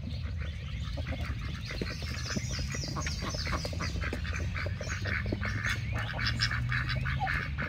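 A mixed flock of chickens and a drake calling as they feed, with many short overlapping clucks and quacking calls in quick succession.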